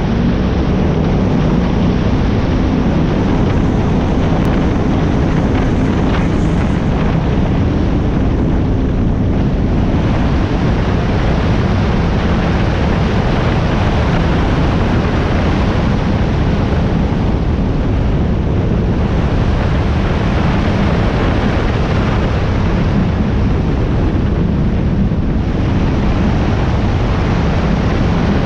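Powerboat running at speed: a steady engine drone under heavy wind noise on the microphone and water rushing past the hull. The wind noise eases briefly a few times.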